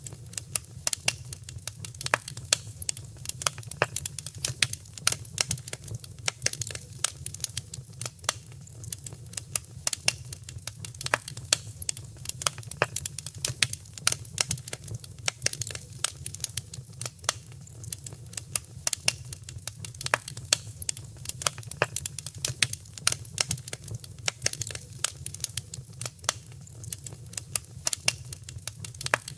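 Wood fire crackling steadily: dense, irregular sharp pops and snaps from burning logs over a low, steady rumble of the flames.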